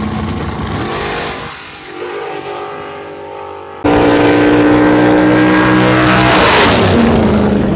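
Drag racing car engines. An engine runs and revs, then the sound jumps abruptly to a much louder engine at high revs, whose pitch falls off near the end.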